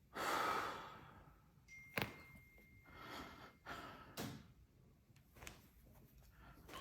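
Chiropractic adjustment: a long breathy exhale fades over the first second, then one sharp crack of a joint comes about two seconds in, followed by a few softer clicks and breaths.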